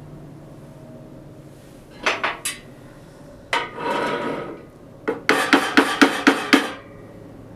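Metal tools knocking and clattering while a workpiece is set up on a wood lathe: three sharp knocks about two seconds in, a short scraping rub near the middle, then a quick run of about seven knocks.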